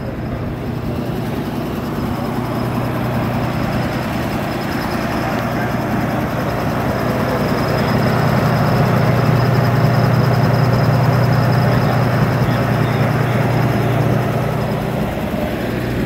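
The 1937 Dodge fire truck's original engine idling steadily and smoothly, growing louder toward the middle.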